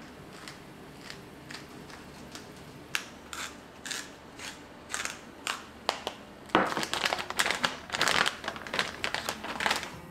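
Wooden spice mill grinding seasoning in short twists. The strokes are spaced apart at first, then come closer together and louder from about six and a half seconds in.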